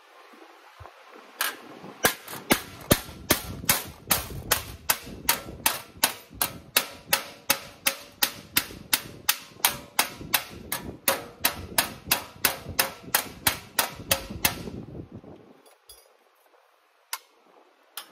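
Hand hammer blows on a sheet-metal repair panel backed by a piece of stainless steel used as a dolly, struck in a steady run of about three blows a second for some thirteen seconds. The blows stop near the end, with one more single blow after a short pause.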